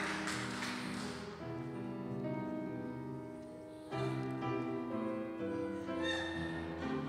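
Piano accompaniment playing an instrumental interlude between sung verses, held chords that grow louder about four seconds in.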